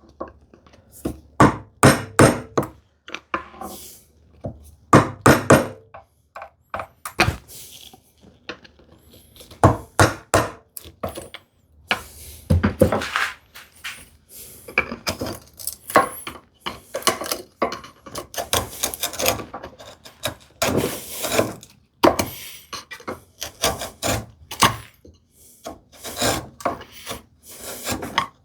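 Bevel-edge chisel paring the walls of a mortise in a wooden leg: irregular short wooden knocks and scraping strokes as the chisel severs and shaves the wood fibres.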